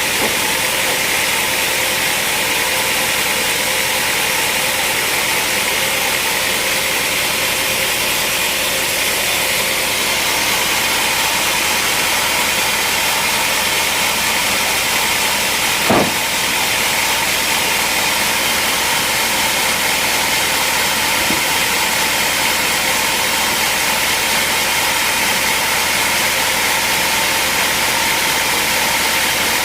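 Sawmill machinery running steadily, with a single sharp knock about halfway through.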